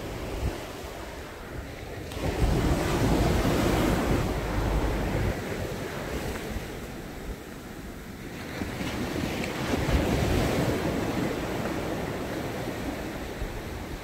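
Sea waves breaking and washing up a sandy beach, the surf noise swelling twice, about two seconds in and again near eight seconds in, then ebbing. Wind buffets the microphone, heaviest with the first surge.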